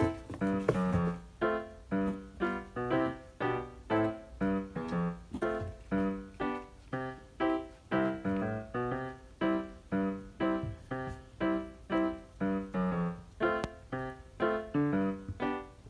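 Background music: a light melody of separate, evenly paced notes.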